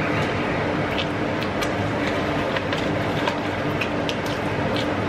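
A steady machine hum over constant noise, with scattered light clicks.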